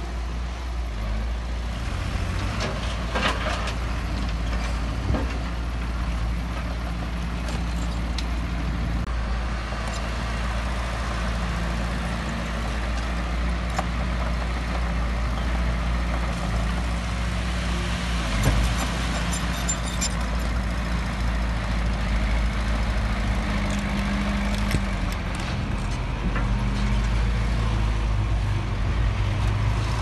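Diesel engines of a small crawler bulldozer and a dump truck running steadily under load, with a few sharp knocks as the dozer works loose soil and rock.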